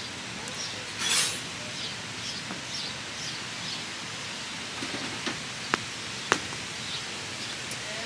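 Wood fire burning under a steel pan of oil, giving two sharp pops a little past the middle, over a steady outdoor rush of noise. A brief louder rush comes about a second in, and a quick run of short high chirps follows over the next few seconds.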